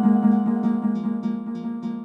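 Fire alarm sounder ringing in rapid repeated strikes on one steady tone, fading away.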